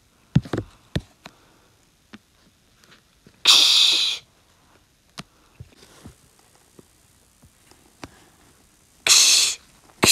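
Two short, loud breathy bursts from a person, about five seconds apart, among faint scattered clicks and taps.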